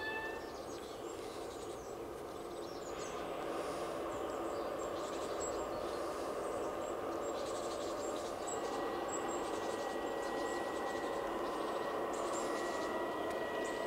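LGB BR 220 garden-railway model diesel locomotive running on its track, a steady mechanical hum that grows louder about three seconds in as it comes closer, with a thin steady whine joining later. Birds chirp over it.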